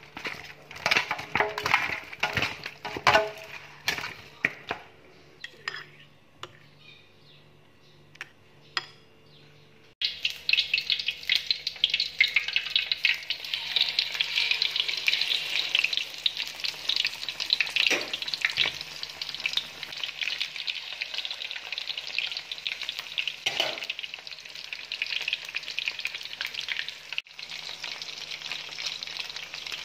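For about the first ten seconds, scattered sharp clicks and handling noises. Then battered chicken pieces deep-frying in hot oil in a wok give a steady crackling sizzle, with a few louder crackles along the way.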